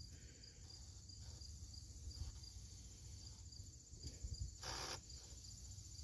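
Crickets chirping faintly in an even, repeating rhythm, with one short rustle of handling noise about five seconds in.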